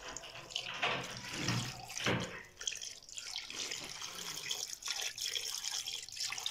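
Water pouring and splashing into an aluminium cooking pot of raw meat and vegetables.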